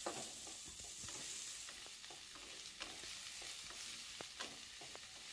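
Softened chopped onions frying in mustard oil in a kadai, with a steady sizzle. A wooden spatula stirs them, making frequent short scrapes and light taps against the pan.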